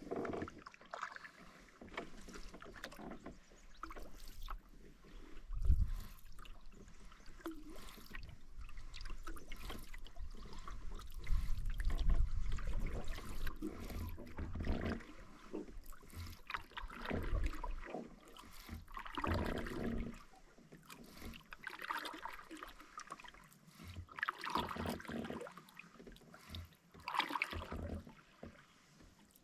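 Canoe paddle strokes dipping and pulling through the water, coming about every two to three seconds in the second half, with a few low thuds along the way.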